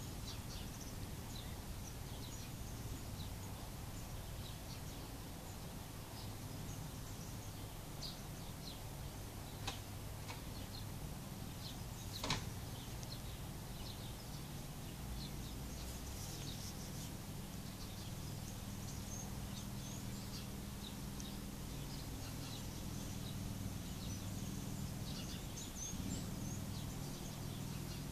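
Outdoor ambience: a steady low hum with scattered short bird chirps, and two sharp clicks about ten and twelve seconds in.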